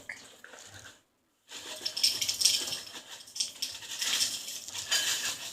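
Faint scratching and small taps of a pen writing on paper, after a moment of dead silence where the recording cuts, about a second in.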